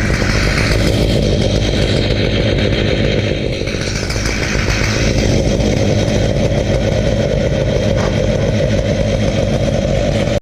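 Chainsaw mill with an 87-inch bar, driven by Stihl powerheads, running steadily at high revs while slabbing a redwood log.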